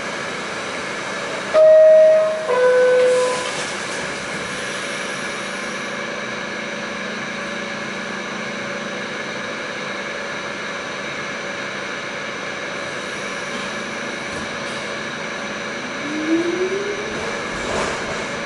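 R46 subway car's two-tone door-closing chime, a higher note then a lower one about two seconds in, over the steady hum of the car standing in the station. Near the end a rising whine as the train starts to pull out.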